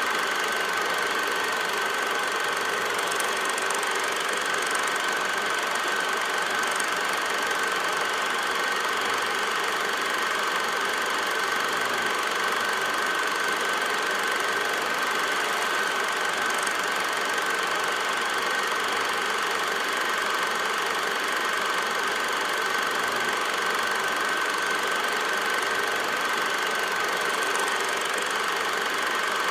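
Film projector running: a steady mechanical whir with a constant whine that never changes.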